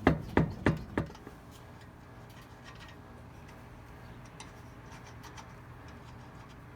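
Four sharp knocks in quick succession in the first second, then faint scattered ticking over a low steady hum.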